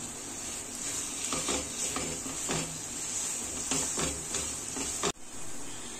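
Silicone spatula stirring and scraping a thick, sticky palm-fruit fudge mixture around a nonstick frying pan in repeated strokes, over a faint steady sizzle of ghee on low heat.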